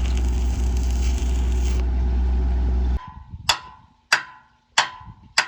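Welding on a steel pump pipe: a steady humming machine with a crackling hiss on top. The hiss stops about two seconds in, and the whole sound cuts off abruptly about three seconds in. Then come four sharp metal taps, evenly spaced about half a second apart, each with a slight ring.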